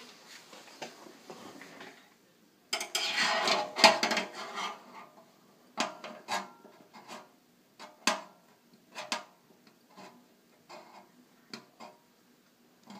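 Metal dent-repair rod scraping and clinking inside a motorcycle's steel fuel tank as it is worked in through the petcock opening and levered against the dent from behind. A loud stretch of scraping starts about three seconds in, followed by a string of single knocks and clinks.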